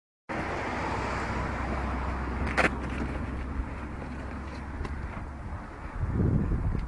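A car's engine and road noise, a steady low hum under a hiss that fades over the first few seconds. A sharp knock comes about two and a half seconds in, and a low rumble starts near the end.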